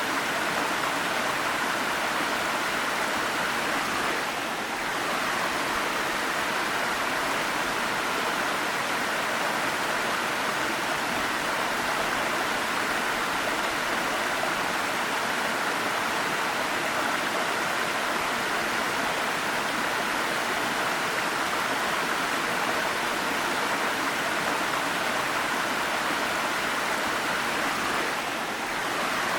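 Waterfall water rushing in a steady, even roar, with a brief dip in level twice, about four seconds in and near the end.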